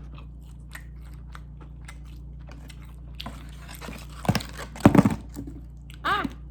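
Close-miked chewing of McDonald's food: soft, quick mouth clicks at first, then louder bites and mouth noises about four to five seconds in, and a short hummed "mm" just after six seconds.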